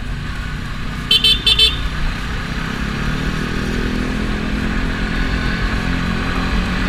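Sport motorcycle engine running with wind rumble, its pitch rising gradually as the bike speeds up from about three seconds in. About a second in, a horn gives a quick run of short toots.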